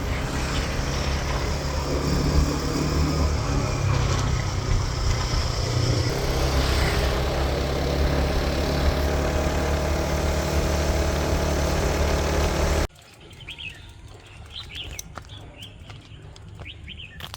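Steady engine and road noise from a moving vehicle, heard from on board, that cuts off abruptly about 13 seconds in. The rest is a quiet outdoor scene with birds chirping.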